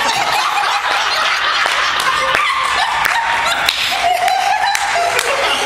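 Applause from a small audience of cast and onlookers, a dense patter of many hands clapping, with voices calling out over it.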